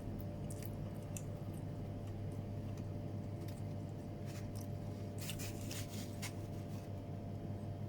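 Steady low hum with faint scattered clicks and rustles of someone eating, most of them bunched between about five and six seconds in.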